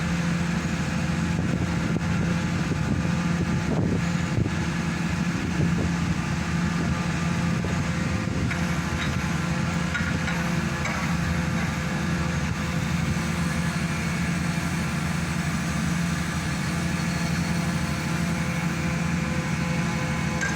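Hydraulic static pile driver's engine and hydraulic power pack running steadily with an even hum, with a few faint knocks about four seconds in.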